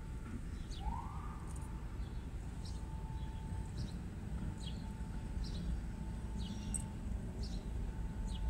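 Steady low rumble of city street traffic, with short high bird chirps about once a second over it. A brief rising tone sounds about a second in, and a faint steady tone comes and goes later on.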